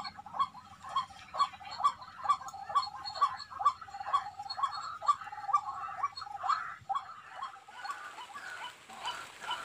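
An animal calling over and over in an even rhythm, a little over two short pitched calls a second, growing fainter after about eight seconds.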